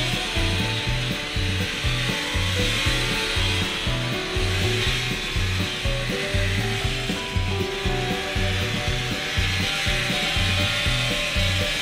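Background rock music with a steady, pulsing bass beat and held notes changing in steps over a dense, gritty wash.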